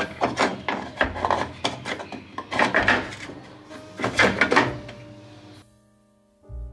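Cleaned plastic parts of a washing machine being slid and knocked back into place: a run of clacks, clicks and scraping that stops about five and a half seconds in.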